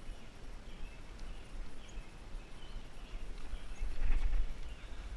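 Outdoor noise: wind rumbling on the microphone, swelling about four seconds in, with a few short, faint bird chirps.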